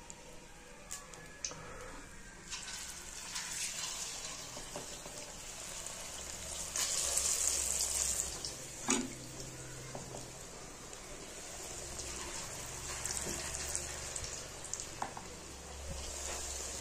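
Moong dal batter sizzling in hot oil in a kadhai as lumps are dropped in by hand to fry into fritters. The hiss swells each time fresh batter goes in, about 3 s, 7 s and 16 s in, with a few light knocks, the sharpest about 9 s in.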